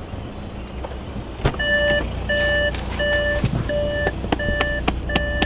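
An Audi's in-car warning beeper sounding a steady run of short beeps, about three every two seconds, starting just after a click, over the low hum of the running engine.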